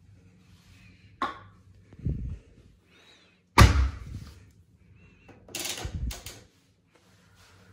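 Front-loading washing machine door being handled: a sharp click, a low thud, a loud slam about three and a half seconds in, then a few more clunks.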